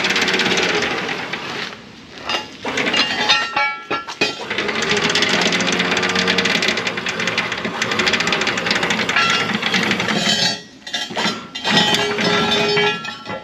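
Electric anchor windlass hauling in the anchor chain, its motor running while the chain links clank up through the hawse pipe. It stops and restarts briefly a few times.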